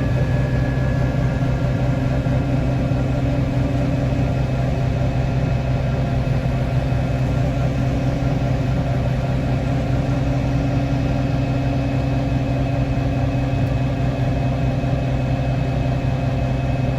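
Farm machine's diesel engine running steadily at constant speed, a low, even hum with no change in pitch.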